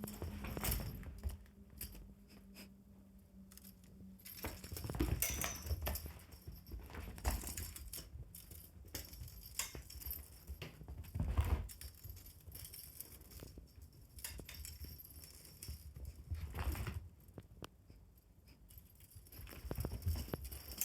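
Pets playing with a fishing-rod wand toy: irregular thumps and scuffles on the floor, mixed with light jingling and clicking, with louder flurries every few seconds.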